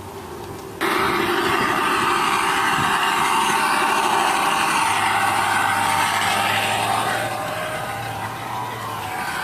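G-scale model diesel locomotive in Santa Fe livery pulling boxcars along garden railroad track: a steady mechanical running noise that comes in suddenly about a second in and eases off a little near the end.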